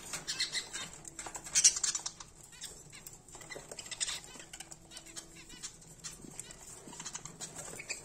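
A flock of budgerigars feeding at a seed tray: wings fluttering, feet and beaks scratching in seed, and short high chirps, with a louder flurry about one and a half seconds in.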